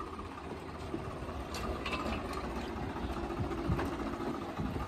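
Small farm tractor's diesel engine running steadily as the tractor pulls away.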